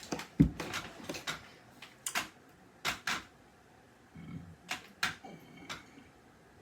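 A few scattered clicks and knocks with a low thump about half a second in: small objects being handled close to the microphone.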